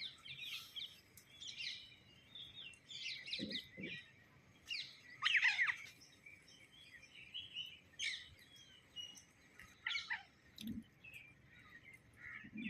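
Birds chirping: a string of short, varied calls, loudest about five seconds in, with a few soft low thumps in between.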